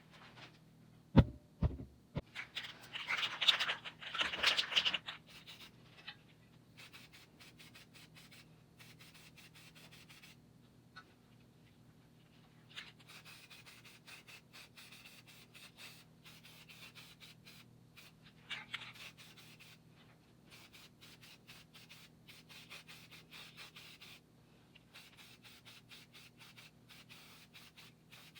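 Hand rubbing and scratching at a workpiece: two sharp knocks a little over a second in, then a louder stretch of scrubbing, then lighter rapid scratching that stops and starts. A faint steady hum runs underneath.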